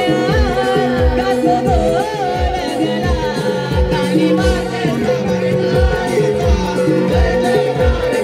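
Naman song, a Konkani Marathi devotional folk song, sung by a male voice over a steady held note and a drum beating about twice a second. The singing is strongest in the first few seconds.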